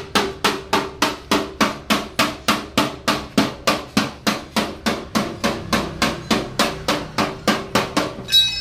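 Hammer blows on metal in a steady rhythm, about four a second, each with a short ringing note, cut off abruptly just before the end.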